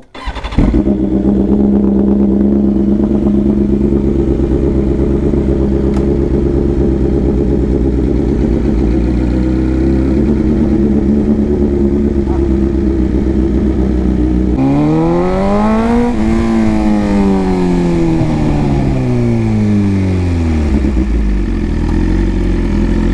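1000cc inline-four superbike engine starting about half a second in and settling into a steady idle. Past the halfway point it revs up once and winds slowly back down to idle.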